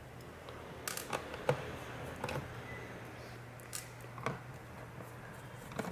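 Irregular small clicks and taps of a Phillips screwdriver and screws on an Acer Aspire 3 laptop's plastic base as the bottom-cover screws are taken out.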